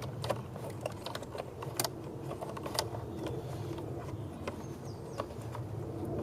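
Scattered sharp clicks and small knocks of hands working plastic and metal parts in a car's engine bay, over a steady low background hum.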